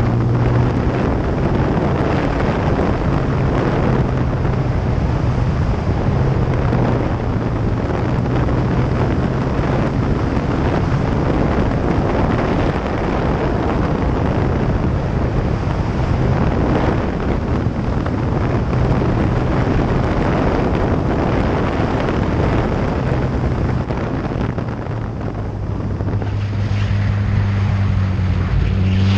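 Heavy wind rush on a motorcycle-mounted microphone at riding speed, over the steady low hum of a Kawasaki ZX-14 inline-four engine. Near the end the wind eases briefly and the engine note comes through more clearly.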